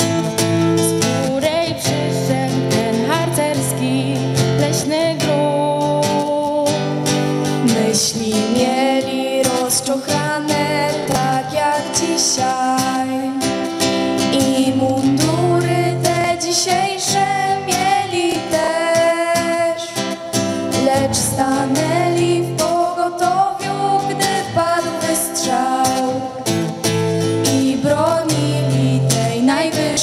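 Group of girls singing a scouting song into stage microphones over a strummed acoustic guitar, heard through the hall's sound system.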